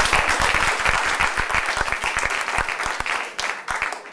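Audience applauding. The clapping is dense at first, then thins to scattered claps and dies away near the end.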